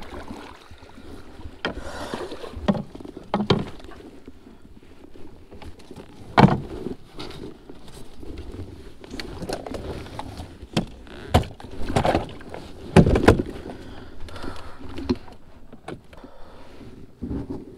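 Plastic fishing kayak being paddled and handled: water swishing under paddle strokes, with a dozen or so irregular knocks and clunks of the paddle and gear against the hull, the loudest a third of the way in and just past the middle.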